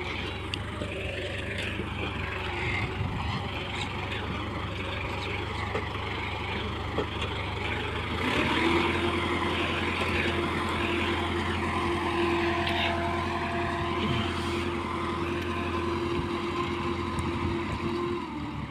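Farm tractor engine running steadily as it pulls a bed-shaping implement through the soil. About halfway through, a steady higher-pitched whine joins the engine's low hum and lasts almost to the end.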